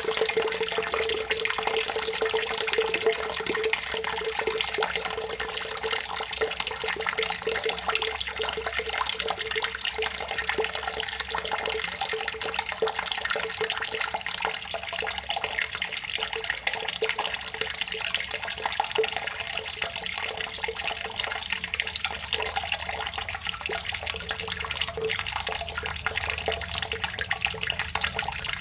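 Running water splashing and trickling steadily, an unbroken flow with fine irregular splashes.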